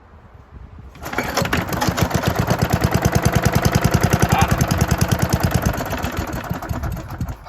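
A 1972 Hayterette rotary mower's petrol engine, stone cold and hard to start, catches about a second in and runs unevenly, pulsing about ten times a second, then fades and dies near the end.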